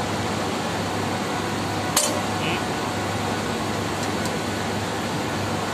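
Steady hum and rush of running fan machinery, with one sharp metal click about two seconds in and two faint ticks about two seconds later as a hex key works on the metal hub of a condenser fan blade.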